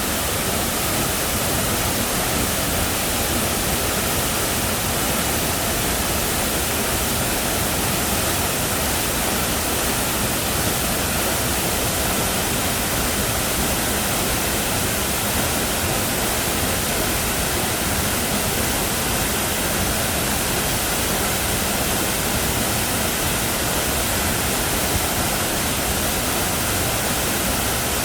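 Waterfall pouring, a loud, steady, unbroken rush of water.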